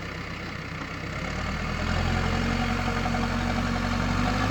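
Heavy diesel engine running steadily, its low hum growing louder about a second and a half in, then holding.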